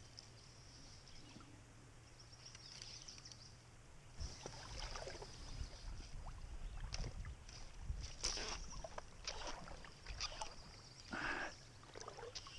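Oars of an inflatable pontoon boat dipping and splashing in the river as it is rowed, with irregular short splashes and knocks, over a low rumble from about a third of the way in.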